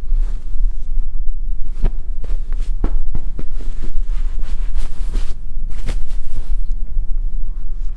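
A steady low hum from a furniture mechanism, with a run of sharp clicks and knocks in the middle.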